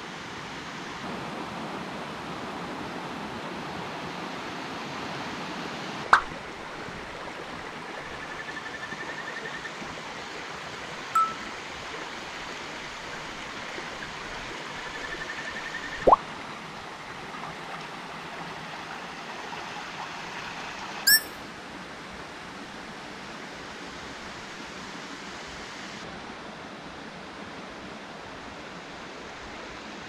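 Steady rush of a mountain creek flowing over rocks. A short sharp sound effect cuts in about every five seconds, four times.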